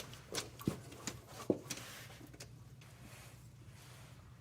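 A few light clicks and knocks from parts being handled in the first second and a half, then quiet with a faint low steady hum.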